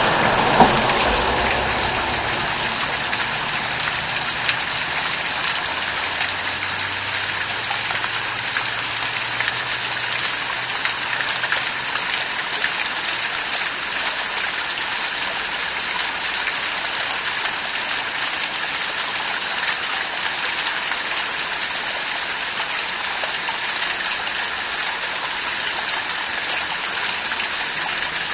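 Waterfall rushing steadily, a continuous hiss of falling and splashing water.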